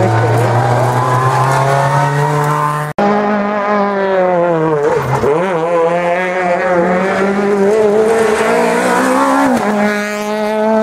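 Rally car engines at high revs. One holds a steady note; then, after a sudden cut about three seconds in, another's pitch drops sharply and climbs again as it lifts off and gets back on the throttle through a corner, with a second drop and step up near the end.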